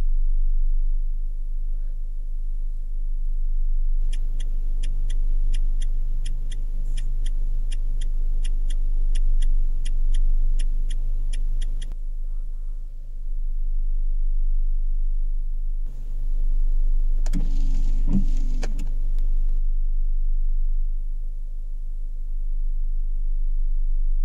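Steady low drone of a car driving, engine and road noise heard from inside the car. From about four seconds in, a turn-signal indicator ticks evenly at about three clicks a second for some eight seconds and then stops. A brief louder sound with a pitched tone comes near the end.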